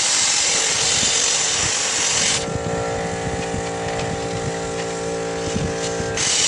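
Power tool cutting steel plate, a loud, steady hiss. It breaks off suddenly about two and a half seconds in, replaced by a steady hum made of several pitched tones, and the hiss resumes suddenly near the end.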